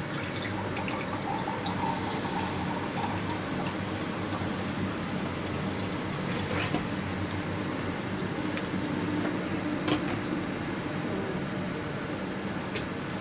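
Broth with chicken and carrots simmering in a wok, a steady bubbling over a low hum, with a few faint ticks.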